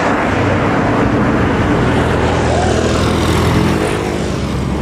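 Roadside traffic, led by the steady low drone of a large diesel engine, as an intercity bus drives away and a motorcycle approaches.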